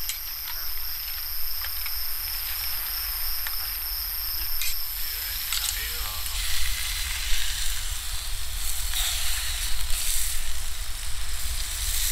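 Insects trilling steadily in several high, even tones. About halfway through they cut off abruptly and a broad steady hiss takes over.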